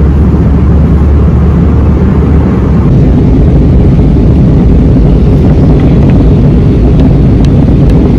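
Steady, loud low rumble of jet engines and rushing air heard inside an airliner cabin in flight. The tone shifts slightly about three seconds in.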